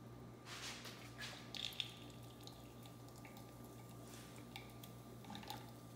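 Faint drips and squishing of juice being squeezed by hand out of a freeze-thawed apple into a glass, a few small sounds scattered over a steady faint hum.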